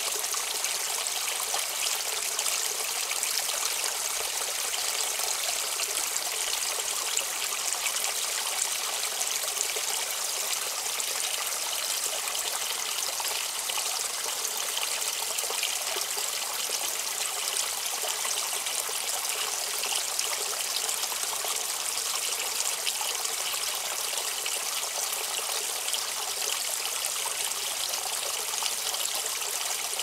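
Shallow river babbling: a steady, even rush of flowing water.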